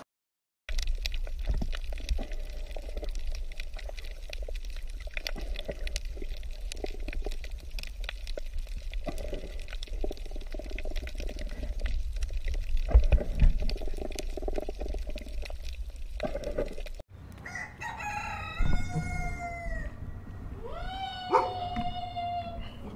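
Steady rushing noise with a heavy low rumble and scattered clicks, then, after a sudden cut about three-quarters of the way in, two long animal calls, the first falling in pitch and the second rising and then holding a steady note.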